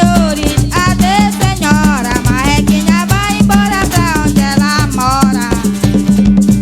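Upbeat Brazilian folk dance music with a fast shaken-rattle beat, a melody line, and a steady bass note underneath.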